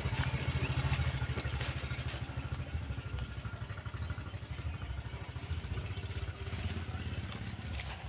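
Motorcycle engine running, a low, rapid throb that slowly fades.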